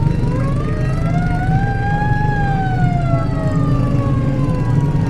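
Parade truck siren winding up over about a second, peaking, then falling slowly in one long wail, over a steady low rumble.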